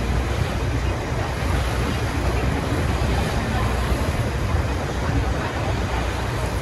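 A boat's engine running with a steady low rumble, mixed with water rushing past the hull and wind on the microphone.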